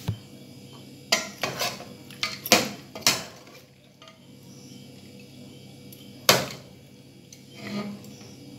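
Steel serving spoon clinking and scraping against a metal cooking pot and a ceramic plate as chicken curry is served: a quick run of sharp clinks in the first three seconds, another about six seconds in, and a softer knock near the end.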